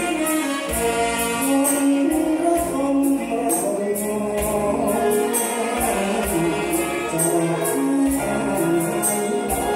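Male vocalist singing a slow song into a microphone, backed by a live band with sustained keyboard notes and drums, and a steady high percussion beat keeping time.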